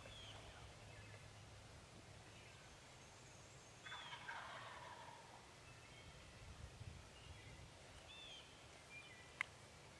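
A wild turkey gobbler gobbles once, faint, about four seconds in: a rattling call lasting about a second and a half. A single sharp click comes near the end.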